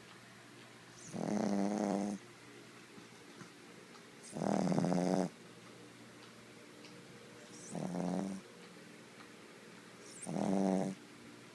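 A sleeping pet snoring in a slow, even rhythm: four snores about three seconds apart, each a low rasp lasting about a second.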